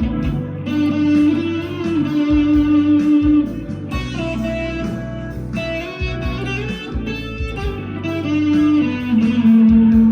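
PRS SE 245 electric guitar played through overdrive: a B-minor lead line of held, sustained notes with some string bends.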